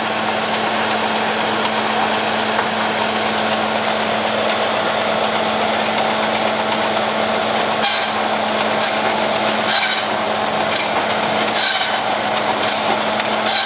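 Engine-driven cedar shingle mill running steadily with a constant hum from its engine and belts. From about eight seconds in, its saw rasps through cedar about once a second as shingles are cut.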